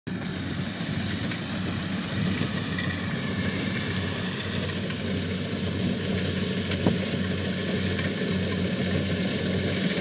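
Kubota DC70Plus rice combine harvester's diesel engine running steadily under load at a distance, a low even hum that grows slightly louder as the machine approaches.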